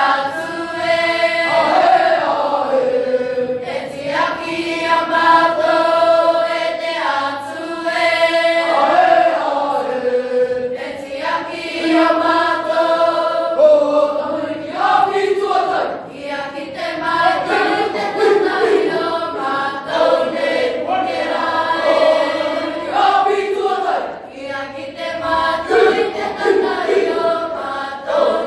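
A large group of school children singing together in traditional Cook Islands choral style: long held chords, with the voices sliding between notes.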